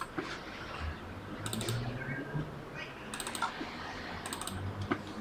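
Computer keyboard being typed on in a few short clusters of clicks, over a faint low hum.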